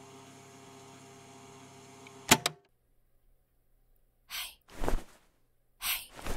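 A low steady hum cuts off with a single sharp thud a little over two seconds in. After a short silence come several brief noisy sounds, some hissy and breath-like.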